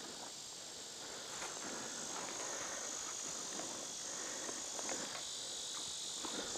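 Steady high-pitched drone of insects, growing a little louder about a second and a half in, with faint scattered rustles and clicks of movement in dry leaves.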